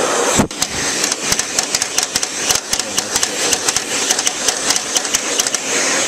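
Hand-held hair dryer blowing hard into a dusty computer case: a steady rushing of fan and air. From about half a second in, rapid irregular clicking, several ticks a second, runs over the rush.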